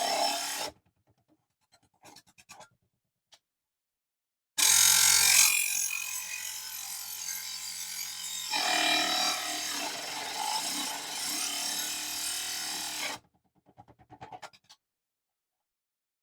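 Mini table saw running, its blade cutting through small aluminium channel: a cut that ends under a second in, then a longer cut of about eight seconds, with the motor hum under the high grinding hiss of the blade in the metal. The cut stops suddenly, and a few faint clicks fall before and after it.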